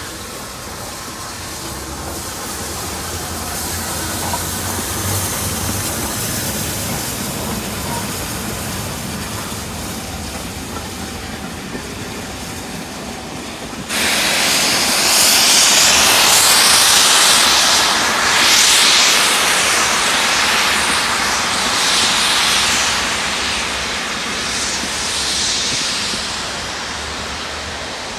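Steam locomotive and its train of coaches passing, the rail noise building steadily. About halfway in a loud hiss of escaping steam starts suddenly and goes on in surges, easing off near the end.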